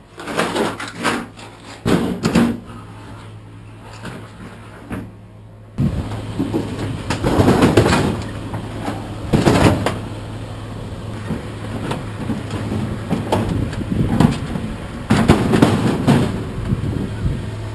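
Metal clanking and scraping from scrap appliances being handled. About six seconds in, a steady engine hum starts and runs under more clatter.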